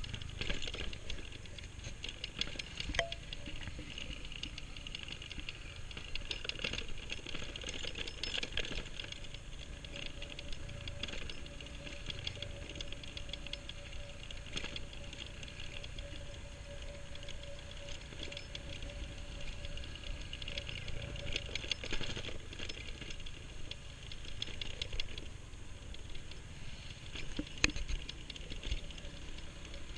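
Scooter riding over a bumpy dirt road, heard from a handlebar-mounted camera: a constant light rattling and clicking from the bike and mount over the bumps, above the low hum of the small engine. A thin steady whine rises out of the mix through the middle of the ride.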